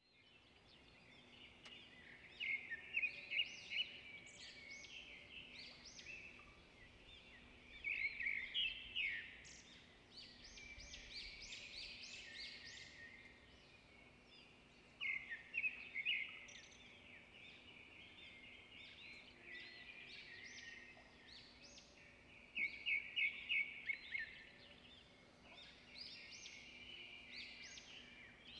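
Wild birds singing, with bouts of rapid, high chirps and trills coming about four times over a faint steady hum of background noise.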